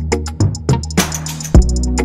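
Background music: an electronic beat with kick drum, fast steady hi-hat ticks and a sustained bass line, with a brief wash of cymbal-like noise about a second in.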